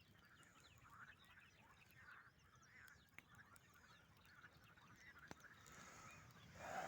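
Faint animal calls repeating about twice a second, with thin high chirps over them and a few sharp clicks; a louder call begins near the end.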